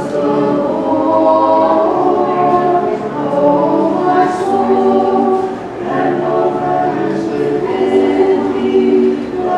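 Orthodox church choir singing a cappella: several voices in held chords, phrase after phrase, with a short pause about halfway through.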